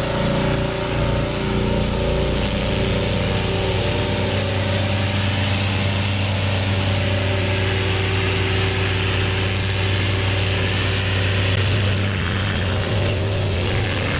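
Gas-engine pressure washer running steadily, a constant low engine hum under a steady hiss.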